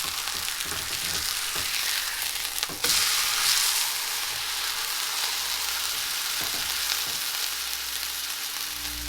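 A beef steak sizzling as it fries in an iron frying pan, a steady hiss that grows louder about three seconds in.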